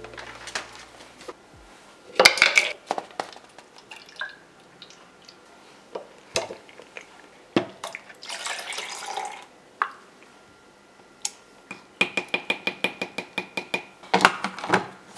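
Plastic clicks and knocks from handling a personal blender's cup and blade base, then liquid poured into the plastic blender cup about halfway through. Near the end, a rapid run of clicks as the blade base is screwed onto the cup.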